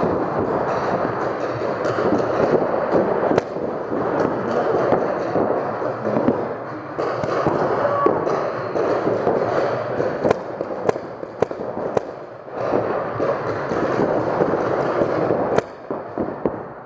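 Paintball markers firing in a dense, continuous clatter of shots, with sharper single shots standing out every second or so, and paintballs hitting the inflatable bunkers.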